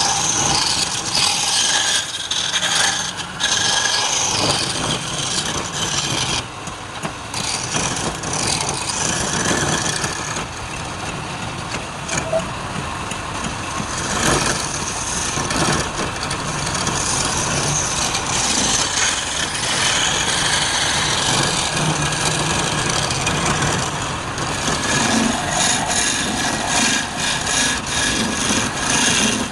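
Wood being worked on a lathe: a tool scraping against the spinning workpiece, making a continuous noise with small rises and falls in level.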